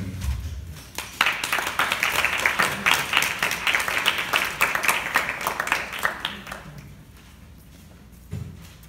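Audience applauding: a burst of hand clapping that starts about a second in and dies away after about six seconds.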